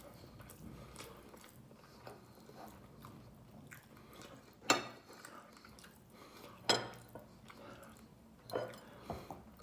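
Eating rice by hand from a glass bowl: quiet chewing and fingers working the food, with a few sharp clicks, the loudest about halfway through and another near seven seconds.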